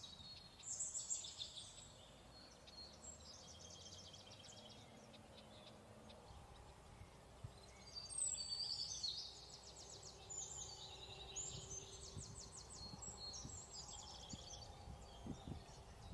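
Small birds chirping and singing in short, high, rapidly trilled phrases with pauses between, loudest about a second in and about eight seconds in, over a faint steady background hiss.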